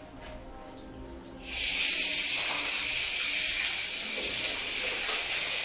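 Water running from a wall tap into a tiled washroom, a steady hiss that starts about a second and a half in.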